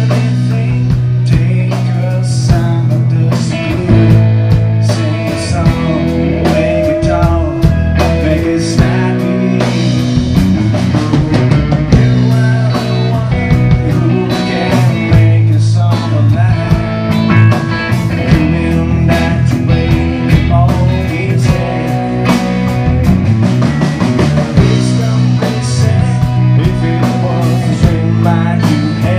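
Live rock band playing, with guitars, bass and drum kit, and frequent drum hits over a steady bass line.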